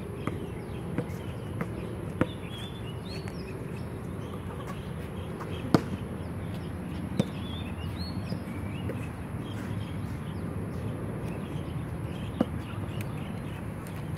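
A basketball bouncing now and then on a hard outdoor court: a few sharp thuds spaced several seconds apart, over steady background noise with a few bird chirps.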